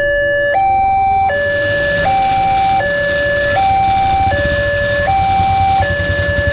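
Railway level-crossing warning alarm sounding a two-tone hi-lo signal, switching between a lower and a higher tone about every three-quarters of a second: the crossing is warning of an approaching train.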